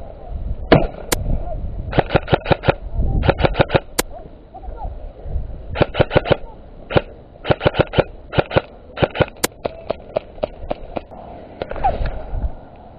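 Airsoft guns firing short full-auto bursts, a rapid rattle of about ten shots a second, repeated in a dozen or so bursts.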